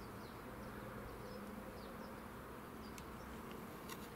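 Faint steady low hum with a few faint, short, high bird chirps, and two sharp taps in the second half.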